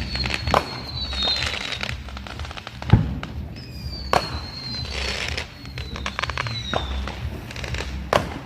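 Neighbourhood consumer fireworks going off: sharp bangs and rapid crackling, with several high whistles that slide slightly down in pitch. The loudest bang comes about three seconds in.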